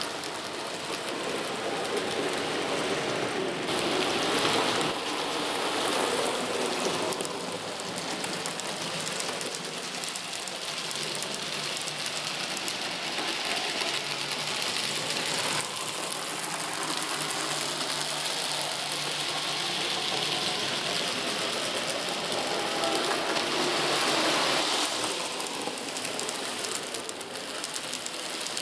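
N gauge model train running on the layout's track, its small motor whirring and wheels clattering steadily. It swells louder twice, once a few seconds in and again near the end.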